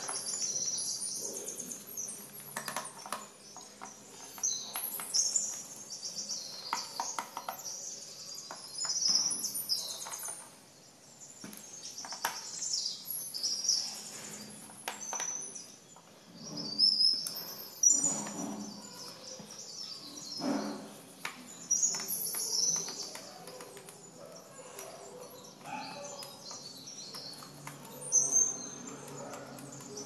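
Small birds chirping and twittering over and over, with scattered light clicks and knocks of the laptop's plastic case being handled.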